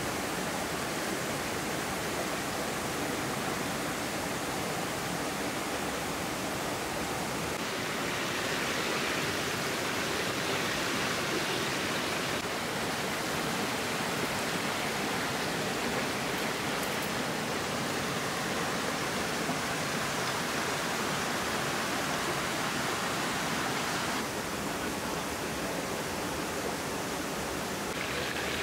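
Whole chicken and onions frying in hot oil in a metal pan, a steady sizzle that grows brighter for a stretch in the middle.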